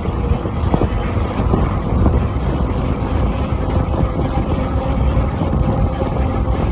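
Steady rumble of wind buffeting the microphone, with tyres rolling on tarmac, from a bicycle riding along the road.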